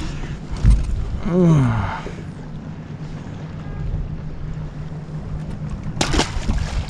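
Water and wind around a small aluminium fishing boat over a steady low hum, with a short falling vocal groan about a second and a half in. Near the end comes a sharp splash as a catfish is dropped back into the lake.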